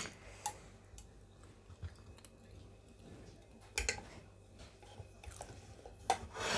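Soft scattered taps and light knocks of hands lifting cooked waffles out of an electric waffle maker and stacking them on a plate, with one louder knock about halfway through.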